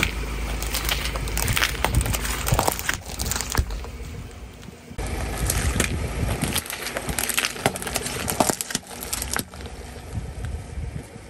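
Car tyre rolling over a row of thin plastic cups packed with water beads, crushing them with a quick run of sharp cracks and crunches. The sound cuts off about halfway through and a second run of cracking crunches follows.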